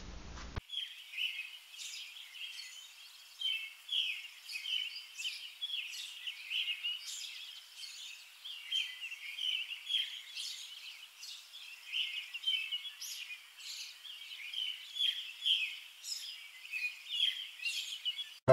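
Small birds chirping and singing: a dense stream of short, high calls, several birds overlapping, starting about half a second in.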